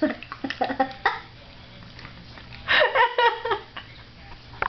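A dog smacking its lips and tongue on a mouthful of peanut butter: a run of short wet clicks, most of them in the first second and a few more later on. A person laughs briefly in the middle.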